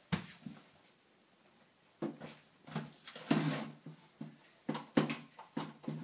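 A string of short, soft knocks and thumps: bare feet on a hardwood floor, then hands handling and rubbing a handheld vacuum cleaner on the floor.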